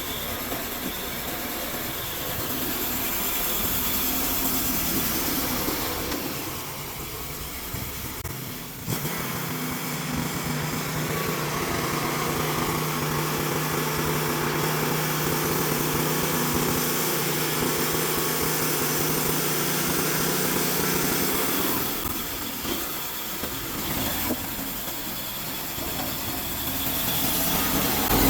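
Norwood LumberMate 2000 portable band sawmill running, its engine driving the band blade through a log. The pitch holds steady through the long middle of the cut, with the sound briefly dropping away about a quarter of the way in and again near the end.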